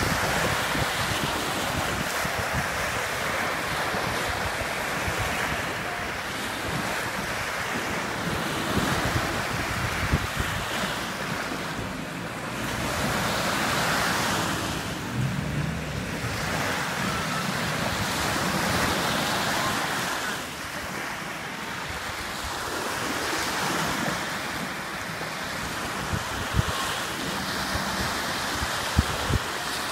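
Small waves breaking and washing up on a sandy beach, the surf rising and falling every few seconds, with wind buffeting the microphone.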